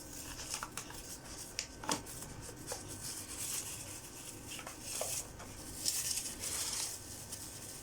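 Paper leaflets and packaging being handled: soft rustling with scattered light clicks and taps.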